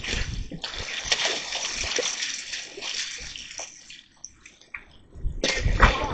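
Water splashing and sloshing, irregular and noisy, dying down about four seconds in before a louder splash near the end.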